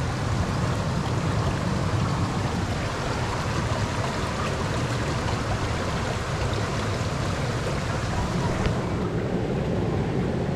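Steady rushing of water in a shallow rocky stream below a waterfall, an even, unbroken rush.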